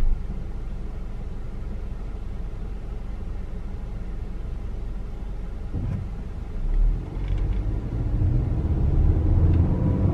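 Car engine and road noise heard from inside the cabin: a steady low rumble while stopped at the light, then growing louder and rising in pitch as the car accelerates away from about six seconds in.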